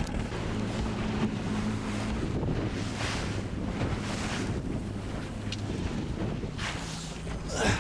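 Inflatable boat's outboard motor running steadily under way, with wind buffeting the microphone and gusts of rushing water noise.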